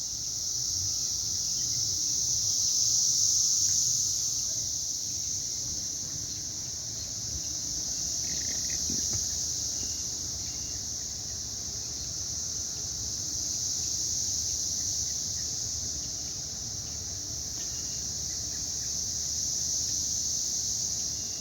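A massed chorus of cicadas: a steady high-pitched drone that swells louder and eases off in slow waves, with a low rumble underneath.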